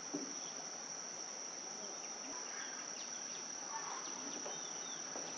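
Insects, crickets or cicadas, droning steadily at one high pitch, over faint outdoor background noise.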